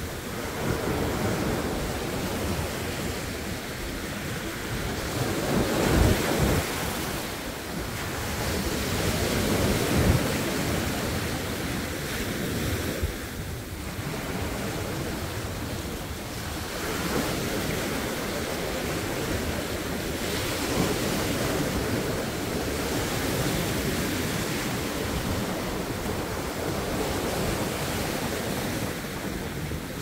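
Sea waves breaking and washing up the shore in a continuous rush, surging loudest about six and ten seconds in.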